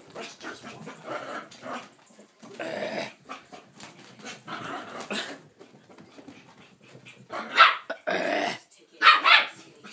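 Yorkshire terrier cross bichon frise puppy barking and growling in an excited frenzy: a run of short, irregular yaps and growls, getting louder and sharper for the last couple of seconds.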